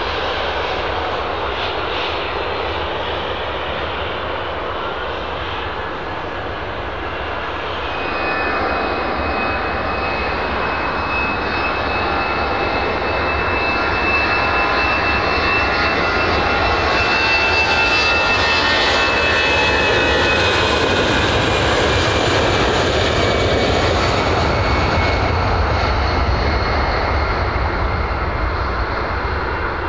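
Twin CFM56-7B turbofans of a Boeing 737-800 BBJ2 running at taxi power as the jet rolls past. A steady engine rush carries a high whine that comes in a few seconds in, grows louder to a peak a little past the middle, and then eases.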